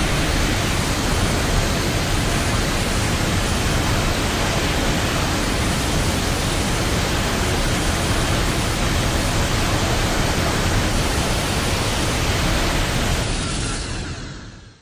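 A steady, even rushing noise like loud static or a waterfall. It holds level and then fades out over the final second or so.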